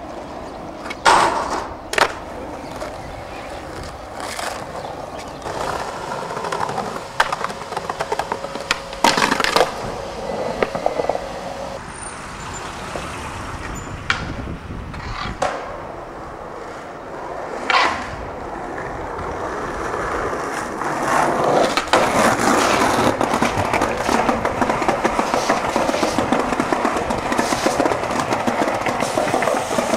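Skateboard wheels rolling on pavement, broken by several sharp clacks of the board snapping and landing tricks. Near the end, the board rolls louder and rougher over a stone-tiled floor.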